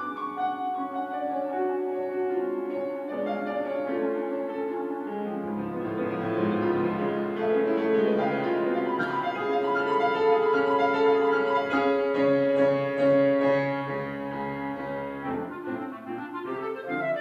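Clarinet and piano playing classical music together; the clarinet drops out for a passage of piano alone with deep bass notes in the middle, then comes back in near the end.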